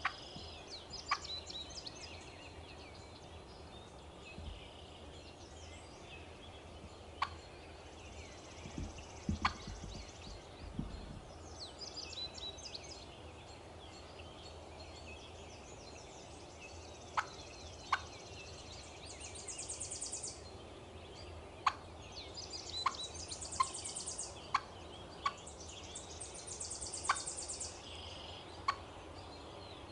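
Young wild hen turkey clucking: about a dozen short, sharp single clucks, spaced out at first and coming about one a second in the last third.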